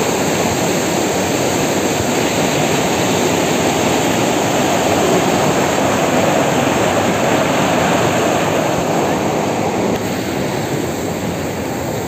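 Whitewater of a rocky waterfall cascade rushing through a narrow rock channel: a steady, loud rush of water that eases slightly near the end.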